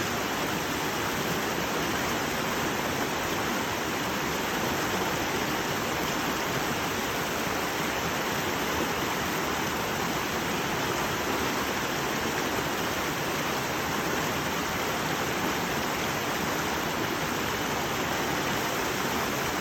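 Shallow brook babbling: a steady, even rush of running water with no breaks.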